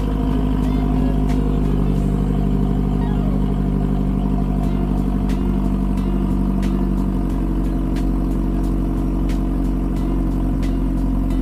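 Mazda 3 MPS turbocharged 2.3-litre four-cylinder engine running steadily, with faint regular ticks about one and a half times a second.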